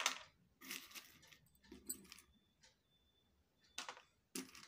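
Dry pasta, beans and peanuts being picked by hand from a steel bowl and dropped into a plastic compartment tray: several short, light clatters and clicks.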